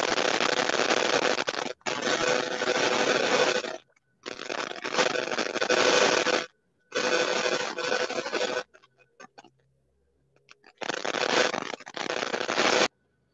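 Five loud bursts of harsh, rasping noise, each about two seconds long and cut off sharply, with a few faint clicks in the gap before the last.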